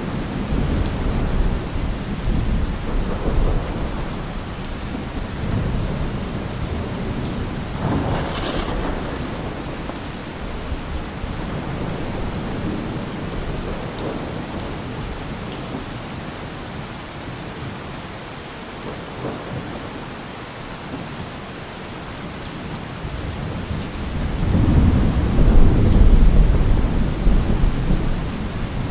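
Steady rain falling through a thunderstorm, with thunder rumbling low throughout. A sharper thunderclap comes about eight seconds in, and a louder, longer roll of thunder builds near the end.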